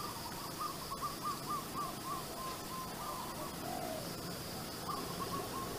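A bird calling: a run of about a dozen quick notes, about four a second, slowly dropping in pitch, then a shorter run of the same notes near the end.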